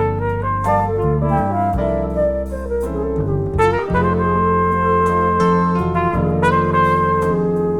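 Jazz band music: horns play a melody over a steady bass line, settling into long held notes about halfway through.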